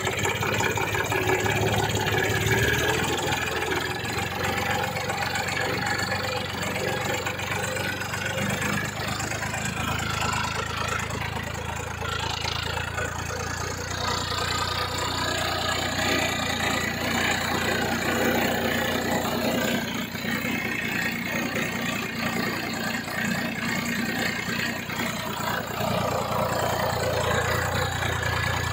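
Massey Ferguson tractor's diesel engine running steadily under load, pulling a potato planter, heard close up from on the tractor.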